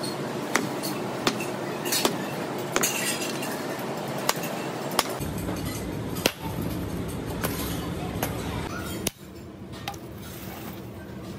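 Hammer blows knocking baked sand mould and crust off a freshly cast metal part, a sharp clink roughly once a second over a steady workshop noise.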